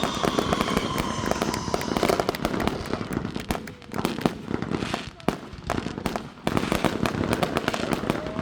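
Fireworks going off in a dense run of rapid crackling pops, with a faint, slightly falling whistle in the first couple of seconds.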